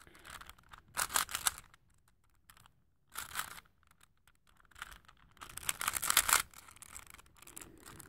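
Plastic Rubik's cube being turned by hand, its faces clacking and rattling in short bursts of rapid clicks: three main spurts, about a second, three seconds and six seconds in.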